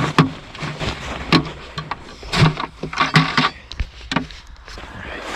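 Irregular knocks and short scrapes of footsteps and gear on thick lake ice.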